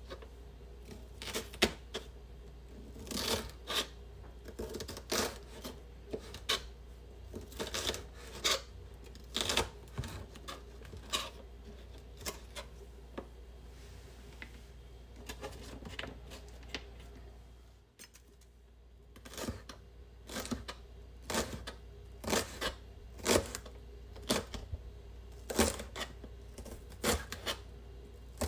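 Kitchen knife slicing green peppers into thin strips on a plastic cutting board: a string of crisp knife taps and chops, about one or two a second, with a short pause about two-thirds of the way through.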